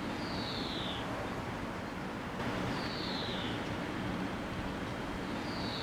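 A bird repeating a short, high, falling whistled call three times, about every two and a half seconds, over a steady rushing background noise.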